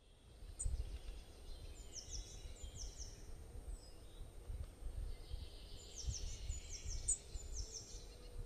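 Outdoor ambience of birds calling: several short runs of quick, high chirps that sweep downward, over a low, uneven rumble.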